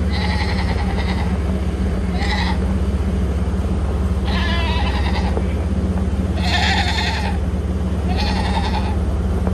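Farm animals bleating, five separate calls of under a second each, spaced every second or two, over a steady low engine hum.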